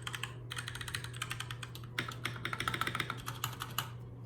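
Fast typing on a Keychron mechanical keyboard with Gateron Brown tactile switches: dense runs of key clicks, with a brief pause just after the start and another near the end.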